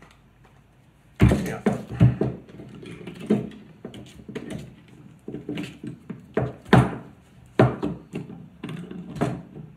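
Metal knocks and clatter of a G-clamp being fitted onto a rear brake caliper and of tools handled on a wooden table: a string of irregular thunks starting about a second in, several of them loud.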